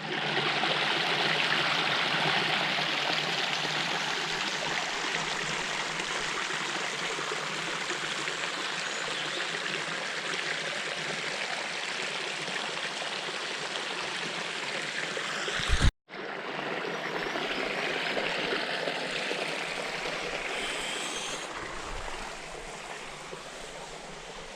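Rushing water of a stream or waterfall, a steady hiss of flowing water. A brief low bump and a momentary break in the sound come about two-thirds of the way in, after which the water continues, somewhat softer near the end.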